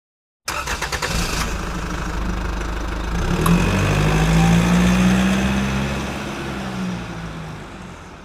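Car engine sound effect: it cranks with a quick run of pulses, catches and runs steadily, then revs up and louder about three and a half seconds in. After that it fades away gradually.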